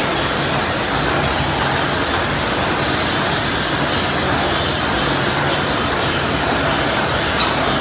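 Rotary short-neck water bottle filling and capping machine running, giving off a steady, dense mechanical noise.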